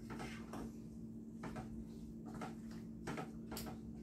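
Wooden spoon stirring pork and barbecue sauce in a saucepan: a string of short, soft scraping strokes at uneven intervals, over a steady low hum.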